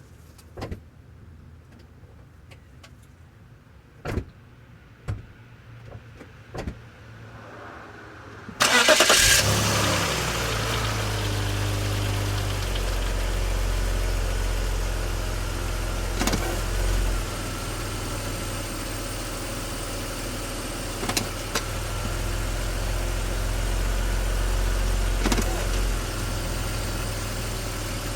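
BMW X5 E53 engine starting: a few sharp clicks in quiet, then the engine cranks and catches with a brief rev flare. It settles into a steady idle, with a few brief knocks over the idle.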